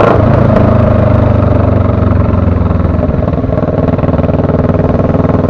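Motorcycle engine running steadily as the bike rides along, its firing pulses even and its level easing off slightly.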